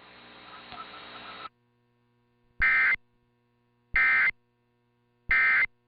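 Three short, identical bursts of Emergency Alert System digital data tones (SAME code), about 1.3 seconds apart: the end-of-message signal closing a broadcast weather warning. A faint hiss of the broadcast channel comes before them.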